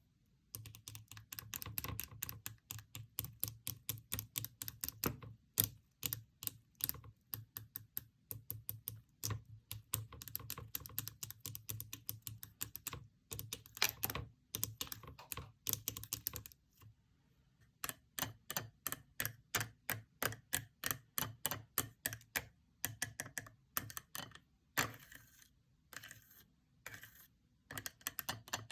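Fingers clicking and tapping the pieces of a handmade paper fidget board, in quick runs of sharp clicks with a few short pauses.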